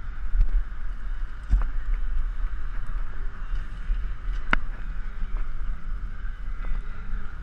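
Wind rumbling on an action camera's microphone while riding a bicycle along a street, with a steady hiss of motion noise. Two sharp clicks cut through, the sharper one about four and a half seconds in.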